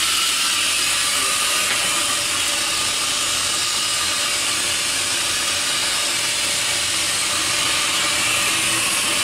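Steady hiss of steam from the steam locomotive DM&IR 332, going on without a break.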